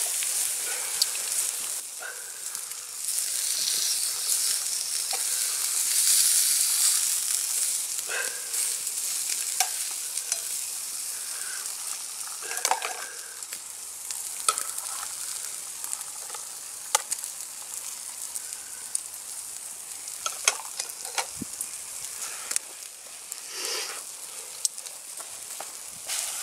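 Bacon sizzling on a grill over a wood fire: a steady high hiss, loudest in the first third, with scattered sharp pops and crackles.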